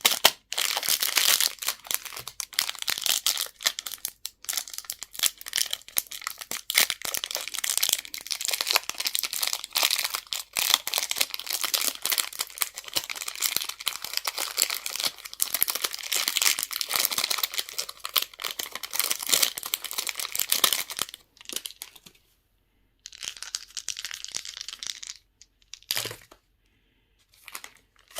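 Candy wrappers crinkling and tearing as they are unwrapped, in a near-continuous dense crackle for about twenty seconds. Then come brief pauses with a few shorter bursts of crinkling and a sharp click.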